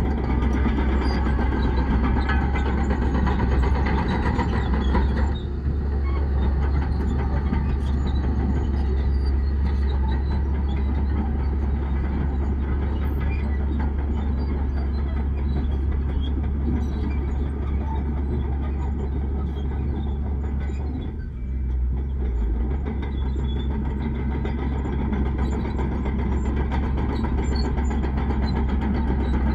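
Heavy diesel earthmoving machinery running steadily, a deep engine rumble, with two brief dips in level about five seconds in and again about twenty-one seconds in.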